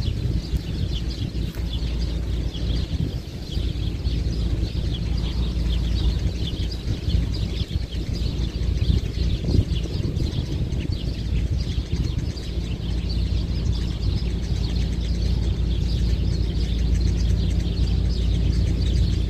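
Strong sandstorm wind buffeting the microphone in a steady low rumble, with many small birds chirping throughout.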